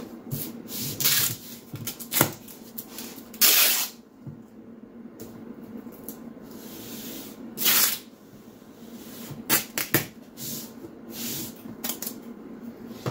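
Masking tape being pulled off the roll in several short rips, the loudest about three and a half and seven and a half seconds in, between quieter rubs as it is smoothed down on the floor.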